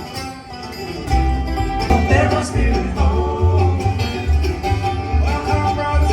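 Bluegrass music: banjo and guitar over a steady, pulsing bass beat, with a melody line that bends in pitch about two seconds in.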